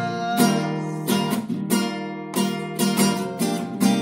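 Acoustic guitar strummed in a steady rhythm, chords struck about twice a second, as an instrumental passage of a song accompaniment.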